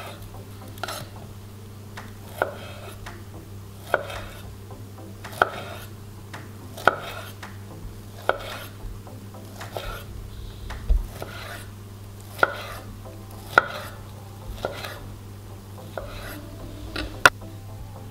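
A kitchen knife slicing through a peeled kiwi, the blade knocking on a wooden cutting board with each cut, about once every second and a half, over a steady low hum.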